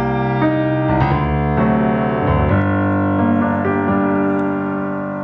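Slow instrumental music led by piano, with sustained chords that change about once a second and ease slightly toward the end.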